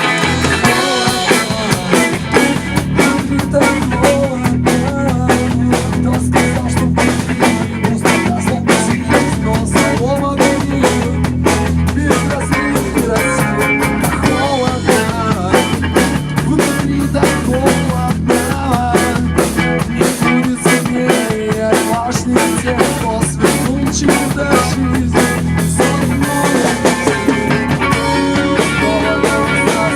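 Rock band playing together in rehearsal, the drum kit prominent with snare and bass drum over guitar. The low end and the drums come in fully right at the start and keep a steady beat.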